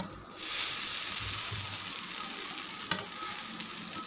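Butter sizzling on a hot dosa griddle as stuffed bread sandwiches are set down into it, the sizzle swelling about half a second in and then holding steady. A light tap about three seconds in.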